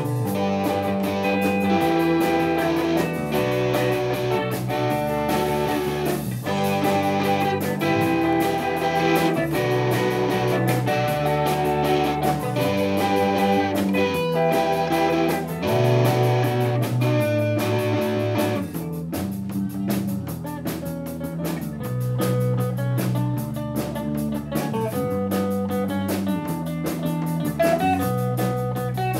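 Live rock band playing an instrumental passage with no vocals: electric guitar and electric bass guitar over drums. The playing gets a little quieter and sparser about two-thirds of the way through.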